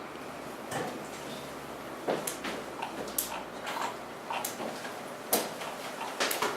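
Irregular sharp clicks and light knocks, about eight of them spread a second or so apart, over a steady low room background.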